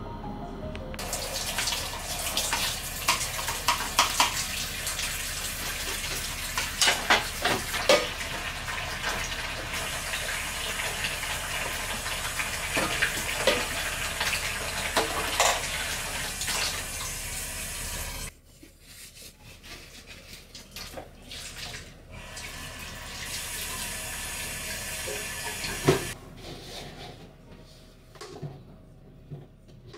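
Kitchen tap running into a sink, with clinks and knocks of items being handled under the water. The tap shuts off abruptly about 18 seconds in. Then come quieter clinks, a shorter run of water and a single sharp knock near the end.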